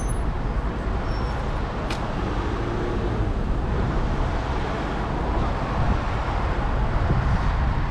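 Steady road traffic at a city street junction, cars and a van driving through, with one short click about two seconds in.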